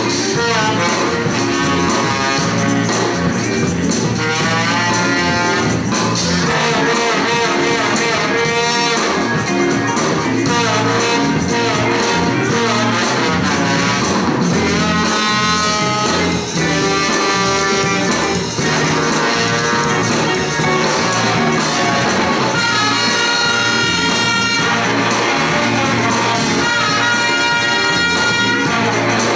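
School big band playing jazz live: saxophones, trombones and trumpets over drums, electric guitar, bass and keyboard. The trumpets and trombones play strong held chords in the last few seconds.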